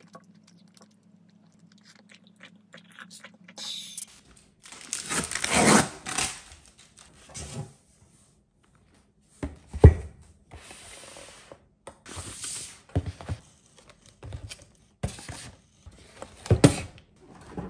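A spoon scraping faintly on a ceramic plate. About four seconds in, this gives way to groceries being unpacked onto a table: loud rustling of plastic and cardboard packaging, with several sharp knocks as boxes and containers are set down.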